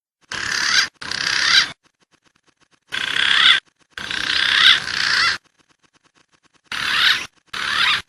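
Recorded wild pigeon lure calls: whistled, wavering calls played in six short clips that start and stop abruptly, with silent gaps between them.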